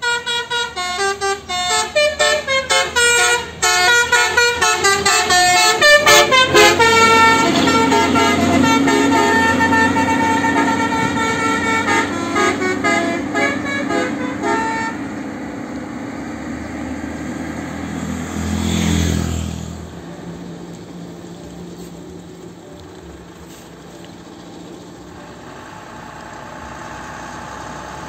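Tourist bus's multi-tone musical horn playing a quick stepping tune for about seven seconds, then holding a chord for several more. About two-thirds of the way through, a heavy vehicle passes close, then a quieter engine keeps running.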